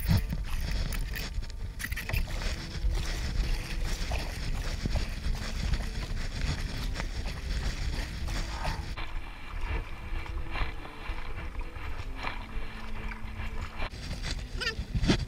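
A wooden paddle dipping and splashing in calm sea water, stroke after stroke, as it pulls a paddleboard along, over a low rumble of wind on the microphone. A sharp knock right at the start is the loudest sound.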